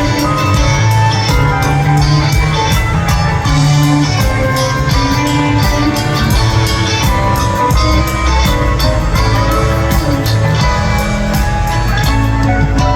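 Live band playing an instrumental passage, with guitar notes over bass and a steady drum beat.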